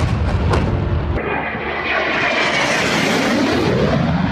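Fighter jet making a low, fast pass: a loud jet engine roar with crackle. About a second in it cuts to another jet's roar, which shifts in pitch as the aircraft goes by.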